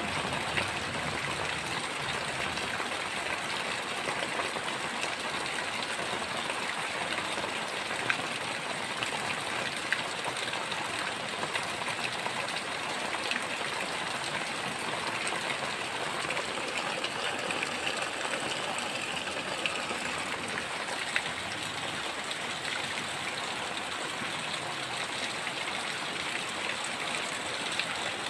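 Heavy rain falling steadily, an even hiss with scattered sharp ticks of drops striking close by.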